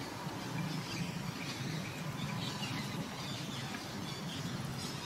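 Faint bird chirps and short sliding calls over a steady low background hum of outdoor ambience.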